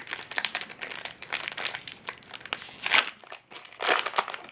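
Hockey card pack wrapper crinkling and crackling as it is handled and torn open by hand, with louder bursts of crinkling about three and four seconds in.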